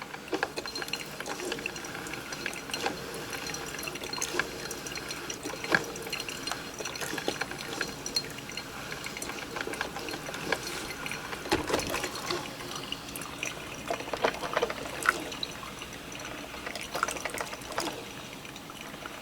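Drip coffee maker brewing: hot liquid trickles and drips through the basket into the pot in a steady run of small irregular splashes. It is flowing freely now that the cocoa powder clogging the basket has dissolved.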